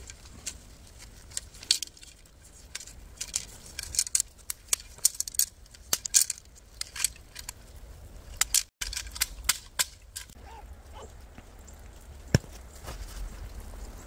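Crinkling and rustling of nylon tent fabric being folded and packed, with light metal clinks mixed in; a single sharp click stands out a little after twelve seconds in.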